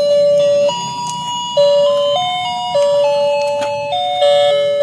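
Battery-operated walking toy pony with a light-up cart playing its built-in electronic tune: a simple beeping melody of held notes stepping from one pitch to the next every half second or so.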